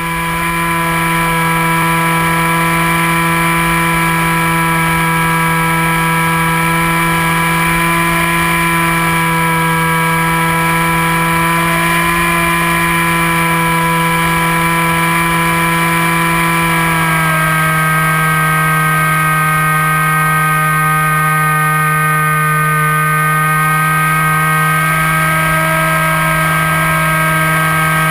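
Electric motor and propeller of a Hawk Sky RC plane running steadily in flight, picked up by its onboard camera: a loud, even whine whose pitch steps down slightly about seventeen seconds in.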